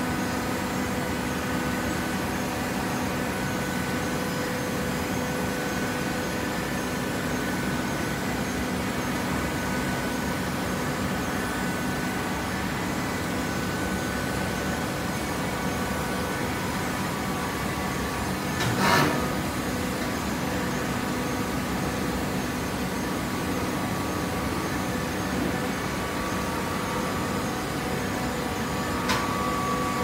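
Industrial horizontal hydraulic baler for shredded paper running: a steady machine hum with several steady tones from its hydraulic power unit. There is a single loud clank about two-thirds of the way through and a sharp click near the end.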